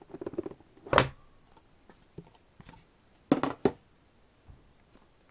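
A CD album being handled on a desk. There is light rustling, a sharp knock about a second in, then a quick cluster of taps and a second knock a little past three seconds.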